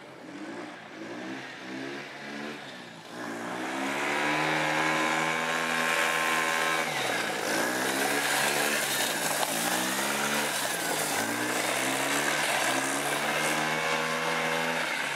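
Powered drift trike's small four-stroke engine revving hard, much louder from about three seconds in. Its pitch drops and climbs again several times as the throttle is eased and reopened, and it fades near the end.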